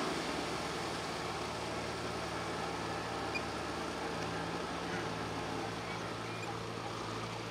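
Tractor diesel engines running steadily under load as two tractors drag rotary tillers through flooded paddy mud, fading slightly as they move away.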